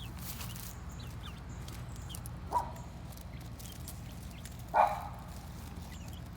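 Two short, sharp animal calls, one about two and a half seconds in and a louder one near five seconds, over a steady low hum with faint high chirps.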